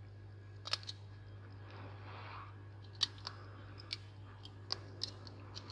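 Scattered sharp clicks and small taps of repair tools and hands handling a phone with shattered back glass, with a soft brief rustle about two seconds in, over a steady low electrical hum.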